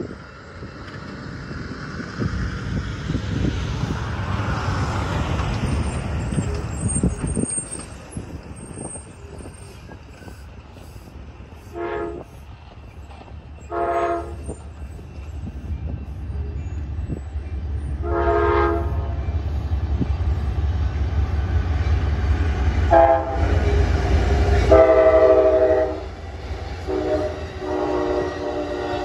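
Two Amtrak GE P42 diesel locomotives on the Coast Starlight passing, their engines rumbling louder toward the loudest point near the end, while the multi-chime air horn sounds: two short blasts two seconds apart, a longer blast a few seconds later, then a long blast as the engines pass close, followed by more horn sounding.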